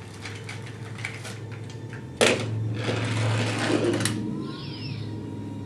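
Plastic toys rattling and clattering: a sudden burst about two seconds in that lasts about two seconds, over a steady low hum.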